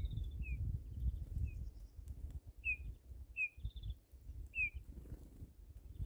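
Small songbirds chirping: short, sharply falling chirps about once a second, with a few quick twittering runs, over a steady low rumble.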